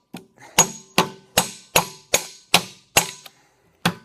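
Hammer blows on a microwave oven transformer, about two and a half strikes a second with a faint metallic ring, knocking the copper winding out of its iron core; the blows pause briefly near the end.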